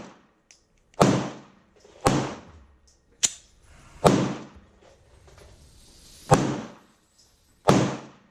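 Six gunshots at irregular intervals. The first four come about a second apart, then there is a longer gap before the last two. Each shot has a short fading echo.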